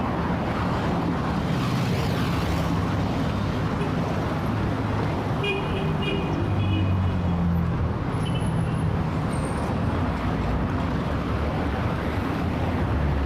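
Heavy city traffic: a steady wash of engines and road noise with a low engine hum. Short car horn toots sound about five and a half seconds in and again around eight seconds.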